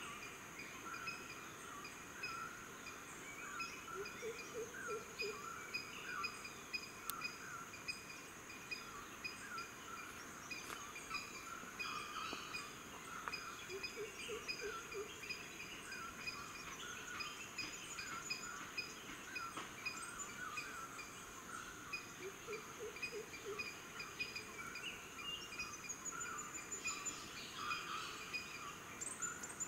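Tropical rainforest ambience: many birds calling over one another, a rapid evenly repeated note and a steady high insect drone, with a low short call three times, about nine seconds apart.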